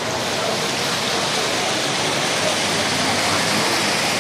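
Floodwater rushing over a road: a steady, even roar of flowing water.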